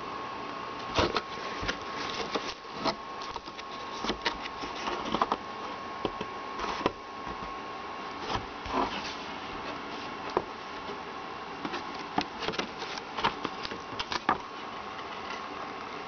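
Cardboard box and paper instruction manual being handled: scattered rustles and sharp clicks over a steady hiss. A faint steady high tone runs through the first half and returns near the end.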